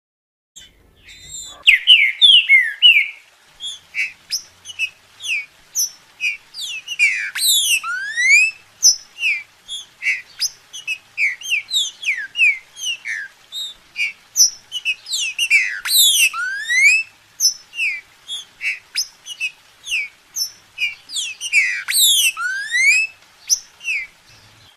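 Green-winged saltator (trinca-ferro) singing: a quick run of short, clear whistled notes, starting about a second and a half in. Three times a louder flourish ends in a rising whistle.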